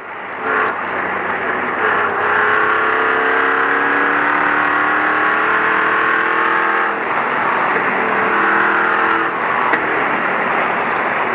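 Ford Ranger race truck's engine working hard under load, heard from inside the cab over a steady rush of road and tyre noise. The engine note changes about seven seconds in and again about nine and a half seconds in.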